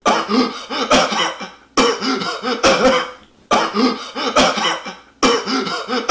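A man's voice coughing hard in four fits, each a quick run of harsh, rasping coughs.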